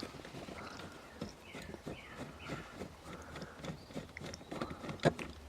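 Light clicks, taps and short squeaks of a screwdriver and small metal parts as a screw is worked out of a car's steering-column lock assembly, with one sharper click about five seconds in.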